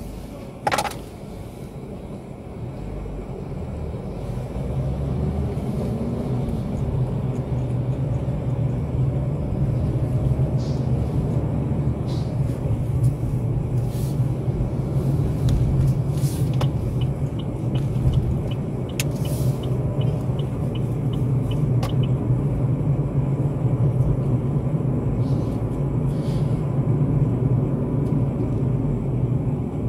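Car running and driving, heard from inside the cabin: a steady low engine and road rumble that builds over the first few seconds as the car pulls away from a standstill, then holds. A single short, sharp, loud sound comes just under a second in.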